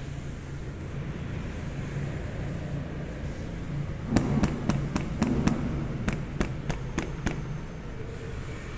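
Yamaha LC135's 135 cc single-cylinder four-stroke engine idling steadily. About four seconds in, a run of about a dozen sharp cracks comes a few per second for some three seconds over a brief swell of engine sound.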